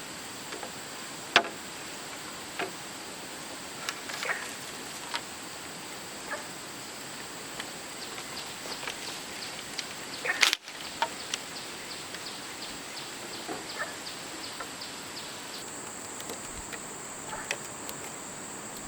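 Steady high-pitched insect chorus, with scattered sharp knocks and taps over it: a quick run of light ticks about eight seconds in and a louder knock at about ten seconds.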